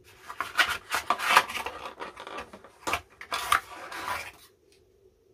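Cardboard packaging scraping and rubbing as it is worked off a scooter's handlebar stem, with a few sharp clicks; the noise stops about four and a half seconds in.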